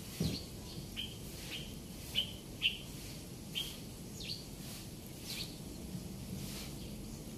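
A small bird chirping: a string of short, high chirps, each dropping slightly in pitch, repeated every half second to a second, then stopping about two-thirds of the way through.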